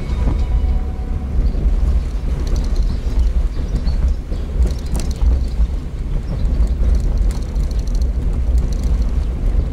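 Open-top car driving, heard from inside the open cockpit: a steady low rumble of wind buffeting the microphone mixed with road and engine noise.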